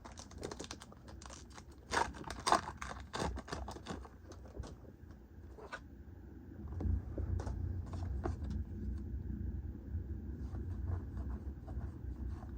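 Pokémon trading-card booster pack being handled: a quick cluster of crinkling, snapping foil and card sounds about two seconds in, then scattered lighter rustles and clicks over a low handling rumble.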